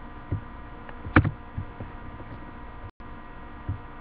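Steady electrical hum picked up by a webcam microphone, with a few soft thumps from handling and movement, the loudest about a second in. The sound cuts out for an instant about three seconds in.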